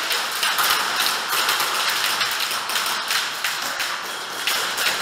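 Dense, irregular tapping and clicking from indoor airsoft play: airsoft guns firing and plastic pellets striking plywood barriers.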